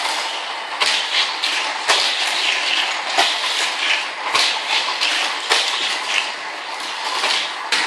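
Hot Wheels die-cast toy cars rattling along plastic Trick Tracks track, with a steady clattering noise and many small clicks and knocks.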